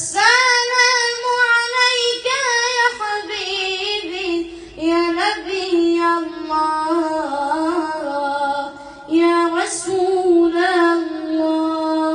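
A boy singing an Islamic nasheed in praise of the Prophet Muhammad into a microphone, one voice drawing out long, ornamented notes that bend up and down in pitch.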